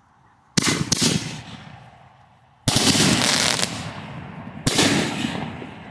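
Consumer aerial firework shells bursting: three loud bangs about two seconds apart, each fading off in a rumbling echo, the middle one followed by about a second of dense crackling.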